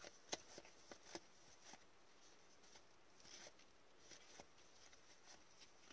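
Near silence, broken by a few faint soft clicks and slides of hockey trading cards being flipped from one gloved hand to the other.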